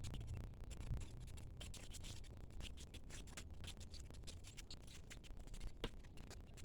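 Faint, scattered scratching and scraping of a garden tool digging through soil, sped up to double speed.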